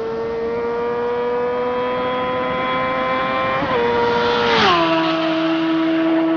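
A high-revving motorcycle engine holding a high, slowly climbing pitch with two brief dips like upshifts, then rushing past about four and a half seconds in, its pitch dropping sharply to a lower, steady note as it moves away.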